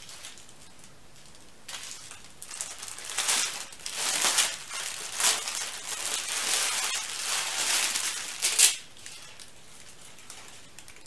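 Crinkling and rustling of paper and plastic packing as a folded, embroidered dress is pulled out and unfolded by hand. It starts about two seconds in, runs for several seconds in uneven handfuls and ends with one sharp, louder crackle.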